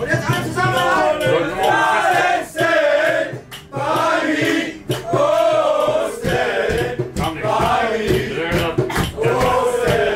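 Music with a man singing over a steady beat.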